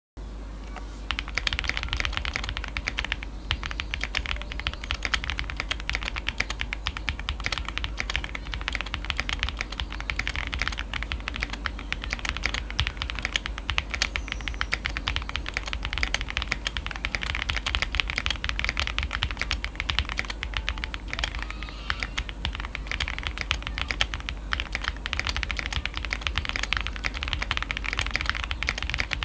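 Zoom TKL mechanical keyboard with lubed JWK Bluey linear switches and GMK Lime keycaps being typed on continuously, a fast, irregular patter of key strokes starting about a second in.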